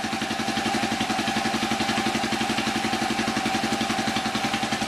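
Small single-cylinder reciprocating multi-cycle engine (RMCE) running steadily at idle, with rapid, even firing pulses and a steady whine above them.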